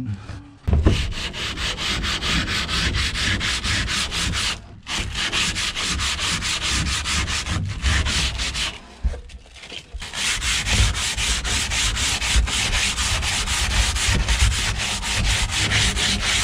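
Old epoxy or filler being sanded off the inside of a fiberglass boat hull: a steady abrasive rasping in quick, even strokes, stopping briefly three times.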